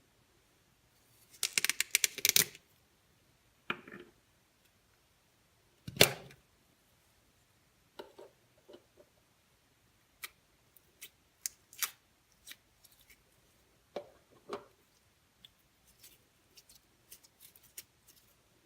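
Slime being squeezed and stretched by hand: scattered short clicks and pops, a dense crackling burst about two seconds in, and one louder thump about six seconds in.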